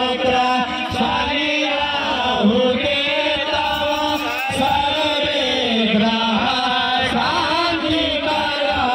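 A man chanting a Sanskrit prayer in a steady, melodic recitation, pausing briefly for breath now and then.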